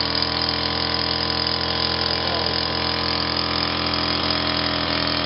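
Two-stroke chainsaw, its bar removed and a pulley fitted on its drive, running steadily while its belt spins the truck's alternator as an improvised generator to charge a flat battery.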